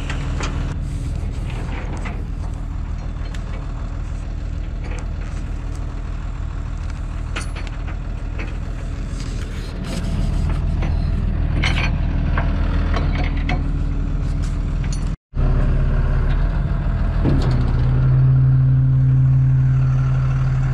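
A truck engine running steadily, with scattered metal clanks and clicks. The sound cuts out for an instant about fifteen seconds in, and a louder steady hum comes in near the end.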